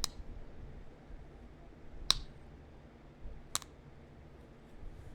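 Three sharp clicks of flakes snapping off a small heat-treated chert point during flintknapping, about one and a half to two seconds apart; one of them is a large flake popping out.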